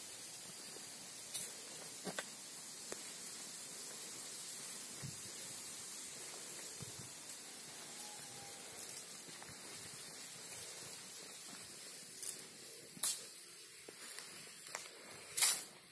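A steady high hiss with a few scattered footsteps scuffing on stone paving; the two loudest steps come near the end.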